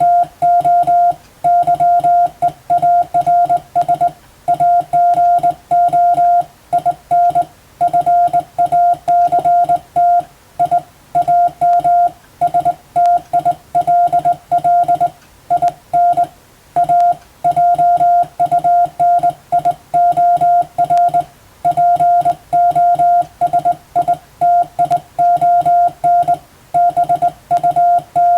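Morse code (CW) tone of about 700 Hz keyed on and off in dots and dashes, sending groups of characters with short gaps between them.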